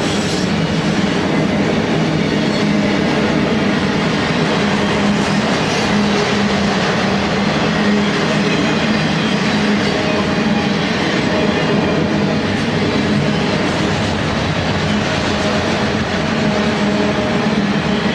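Freight train of enclosed autorack cars rolling past: a steady, loud noise of steel wheels running on the rails.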